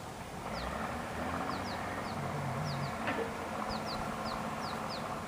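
A small bird chirping repeatedly in short, high, falling notes over steady background noise.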